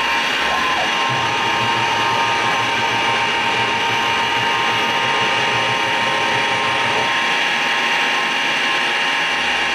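Precision Matthews PM-727M CNC mill milling aluminium angle: the spindle runs as the end mill cuts along the edge, a steady whine with high ringing tones. A lower drone joins about a second in and stops about seven seconds in.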